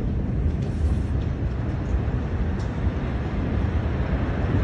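Steady low rumble in the aftermath of a massive explosion, with the air buffeting the phone's microphone.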